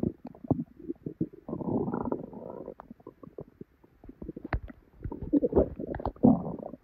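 Bowel sounds from a bloated, painful belly: irregular gurgling and small pops. A longer bubbling gurgle comes about a second and a half in and lasts about a second, and a cluster of pops and gurgles fills the last couple of seconds.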